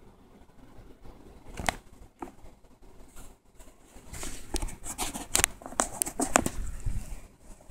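Raccoon feeding from a food bowl: a scattering of sharp clicks and knocks, sparse at first and then a dense run in the second half.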